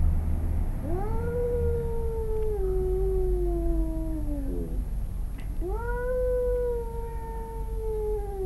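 Domestic cat's drawn-out threat yowl in a standoff with another cat: two long wails of about four seconds each. Each rises quickly and then slides slowly down in pitch. The second starts about halfway through.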